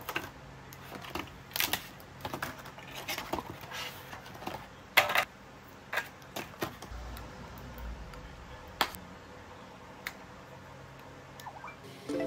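Stiff clear plastic blister packaging being handled and pulled apart, an irregular string of crackles and clicks, the loudest about five seconds in.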